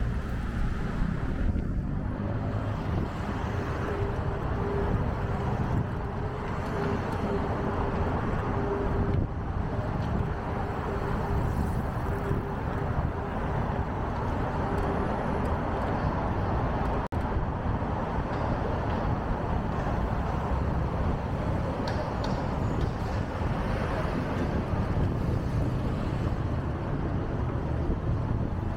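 Busy city road traffic heard from a bicycle riding in it: a steady mix of engine and tyre noise from passing cars and buses, with a steady hum through the first half or so.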